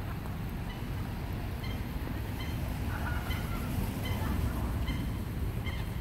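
A flock of gulls calling over water, short high calls repeated every second or so, over a steady low rumble.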